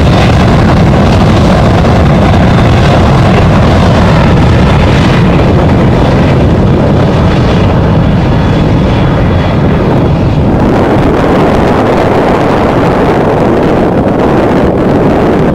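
Jet airliner engines at close range: a loud, steady rumble with a faint high whine, easing slightly in the second half, with wind buffeting the microphone.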